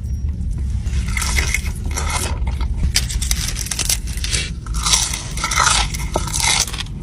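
Close-miked eating: a run of crunchy bites and chewing, crackling and irregular, over a steady low hum.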